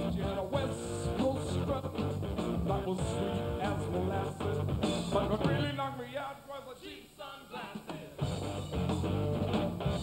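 Hard rock band playing live, with a Gibson Les Paul electric guitar, bass, drums and a male lead vocal. About five and a half seconds in the bass and drums drop out for a couple of seconds, leaving voice and guitar, and then the full band comes back in.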